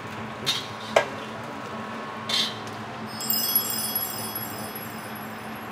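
Chimes ringing, with many high metallic tones starting one after another from about three seconds in and dying away over a couple of seconds. Under it is a steady low hum, with a few brief short noises in the first half.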